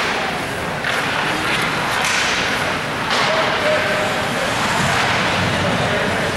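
Ice hockey play in a rink: several sharp cracks about a second apart, each followed by a hissing scrape of skate blades on the ice.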